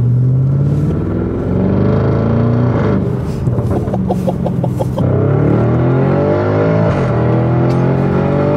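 Audi RS7's twin-turbo 4.0 V8, with its exhaust replaced by pipes and only two ceramic catalytic converters left, accelerating hard through the gears. The engine note rises, then drops at upshifts about three, five and seven seconds in.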